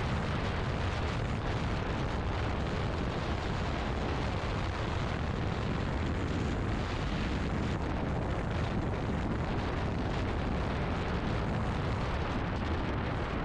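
Steady wind rush buffeting the microphone of an action camera on a moving motorcycle, a heavy low rumble with the bike's running noise under it.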